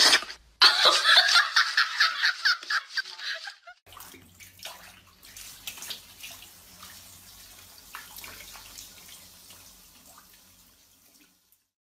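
Rapid run of crisp flicks as a hand riffles through a stack of paper banknotes, fading over about three seconds. After that only a faint low hum with a few soft taps.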